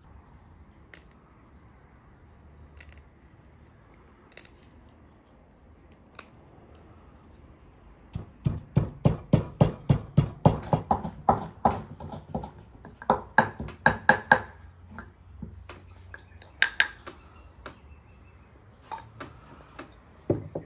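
Wooden pestle pounding in a wooden mortar, crushing dried red pepper: a few light taps and crumbling clicks at first, then a quick run of hollow knocks, about four a second for some six seconds, easing to scattered knocks near the end.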